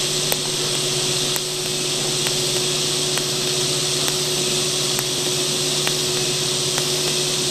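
Electric arc welding on steel box tube: the arc gives a steady hiss, with a faint tick about once a second.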